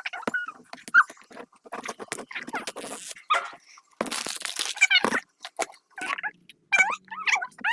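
Plastic and foil packaging crinkling and tearing as a surprise toy ball is unwrapped, with short high-pitched cries in between.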